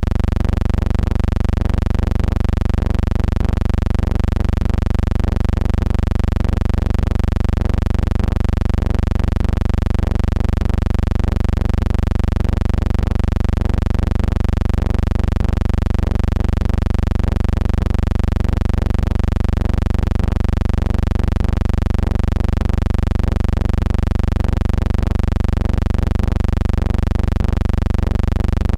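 Steady low hum, strongest in the bass, with a faint even pulse and no change throughout; no crowd, whistle or game sounds are heard.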